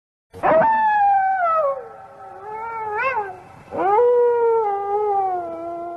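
An animal's two long drawn-out calls, each starting high and sliding down in pitch, the first with a short upward flick near its end.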